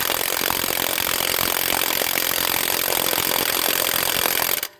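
HANS 1/2" cordless impact wrench (rated 530 Nm) hammering on a car's lug nut in one long rapid burst that cuts off near the end, without breaking it loose. The owner thinks it sounds like it's struggling and may need its battery charged.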